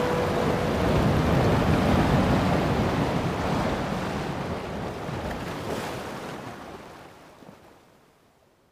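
Ocean surf washing on a shore, a steady rush of breaking waves that fades out gradually over the last few seconds.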